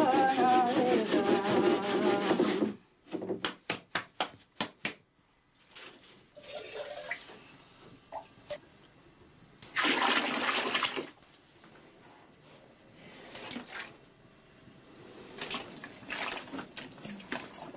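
Flour being sifted through a wooden-hooped hand sieve, a loud rubbing scrape that stops about three seconds in and is followed by a run of quick knocks. Then water sloshes in a bucket as a hand works in it, with a short loud rush of water about ten seconds in, as water is readied for bread dough.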